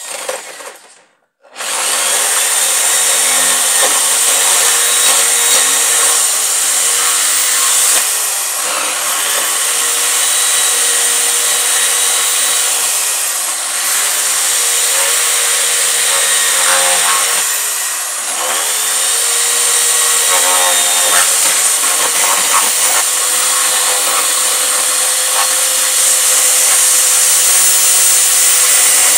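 Corded electric drill running as it bores holes into a wooden board, its motor whine steady. The sound cuts out briefly about a second in, and the pitch sags and recovers about three times as the drill slows and picks up again.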